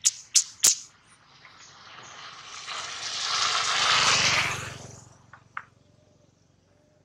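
Three sharp clicks in the first second, then a rushing vehicle pass-by that swells for about three seconds and fades away, with two fainter clicks near the end.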